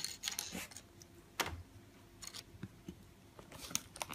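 A cat's paw batting a small object across a wooden desktop: irregular light taps and clicks, a sharper one about a second and a half in.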